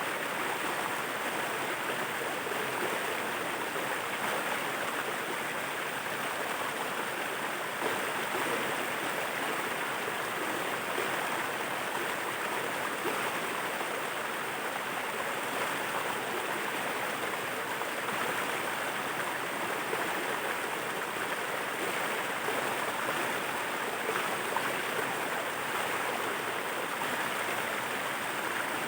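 Waterfall: water rushing steadily, an even noise that never lets up.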